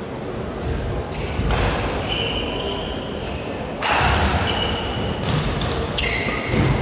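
Badminton rally: a shuttlecock struck back and forth by rackets, about four sharp hits, with short squeaks of sports shoes on the court floor between them.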